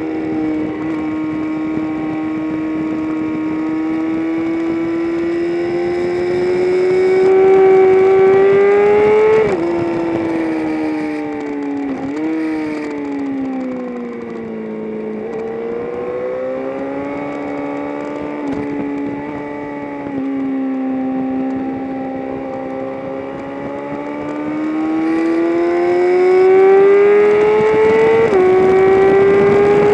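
Engine of a vehicle lapping a racetrack at speed, its pitch climbing under acceleration and dropping sharply at upshifts about nine and a half seconds in, around twelve seconds, and near the end. Between about twelve and fifteen seconds the revs sink as it slows into a corner, then climb again.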